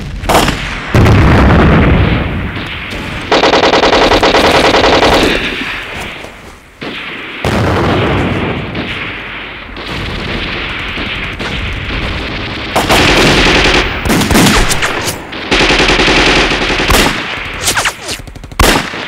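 Battle gunfire in a war drama: several long bursts of rapid machine-gun fire and scattered single rifle shots, with a deep boom about a second in.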